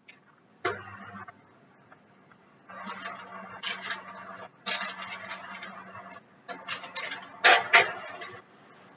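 Wall oven door pulled open about a second in, then a baking tray scraping and rattling against the metal oven rack as it is slid in, with the loudest clatter near the end.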